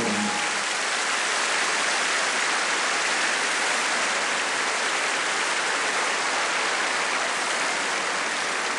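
Studio audience applauding steadily, an even round of clapping, as the band's music stops right at the start.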